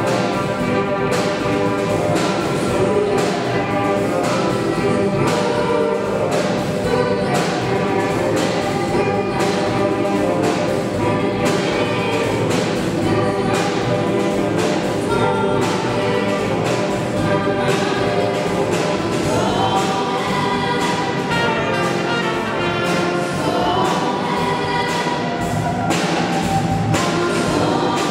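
A youth choir and band playing live: a group of young voices singing together over electric guitar, bass guitar, keyboards and brass, with a steady beat.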